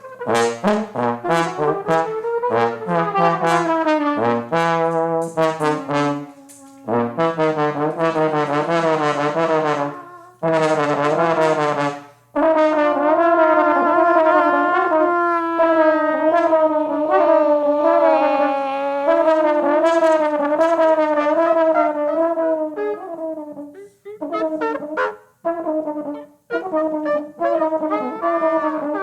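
Trumpet and trombone improvising together with bending, wobbling pitches: short detached notes and brief stops at first, then longer wavering held notes from about halfway, breaking back into short phrases near the end.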